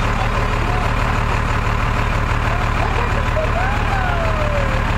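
A vehicle's engine idling with a steady low drone.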